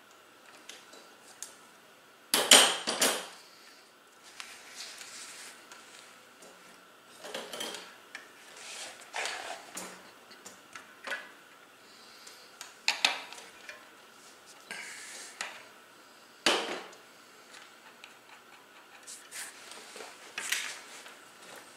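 Metal clinks, clanks and scrapes of a wrench and hub parts while a Shimano coaster brake rear hub is taken apart, the loudest cluster of clanks about two and a half seconds in, then scattered single clinks.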